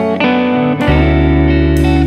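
Background music: a guitar picking out a tune of plucked notes, with a low bass note coming in about a second in.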